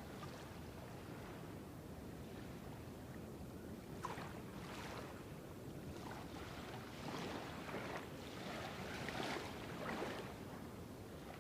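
Small seawater waves lapping and splashing at the shore over a steady low rush. The splashes come about once a second from about four seconds in.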